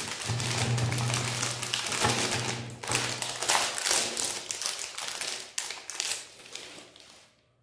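Foil ice cream bar wrapper crinkling and crackling as it is torn open and peeled off by hand, dying away near the end.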